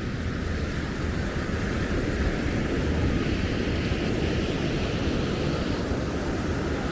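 Surf washing on the beach with wind buffeting the microphone, a steady low rumble under a hiss that swells about halfway through as a wave comes in.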